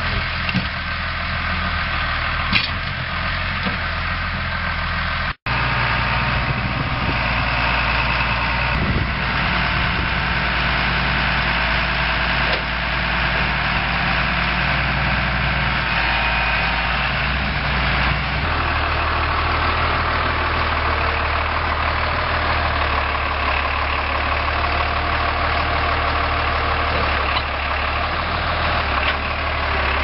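Farm tractor engine running steadily, with a brief dropout about five seconds in and a change in the engine note around eighteen seconds.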